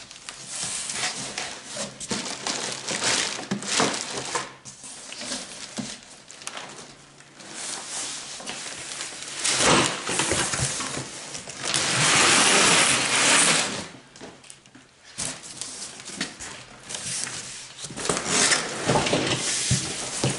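Large cardboard box being handled and turned over on a concrete floor: irregular rustling, scraping and knocks of cardboard, with a long loud scrape about twelve seconds in.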